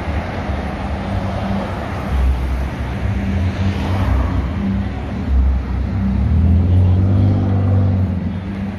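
Road traffic: cars passing close by over a steady low rumble, which swells a few times and is loudest about six to eight seconds in.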